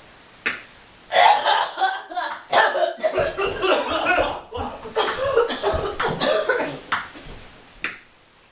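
A person in a coughing fit: a long run of rough, irregular coughs with short gaps between them.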